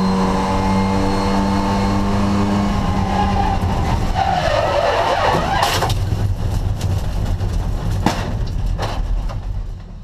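Classic Mini race car's four-cylinder A-series engine heard onboard, running at steady high revs, then dropping away as the car gets out of shape. Tyres skid and scrub about four seconds in, a sharp knock comes near the six-second mark, and a couple more knocks follow as the car runs off the track. The sound sags just before the end.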